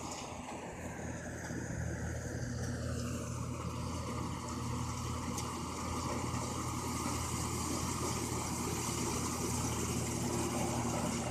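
Engine of a rice combine harvester running steadily, growing a little louder over the first few seconds.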